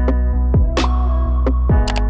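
Electronic background music: a deep steady bass and held synth chords under sharp drum hits.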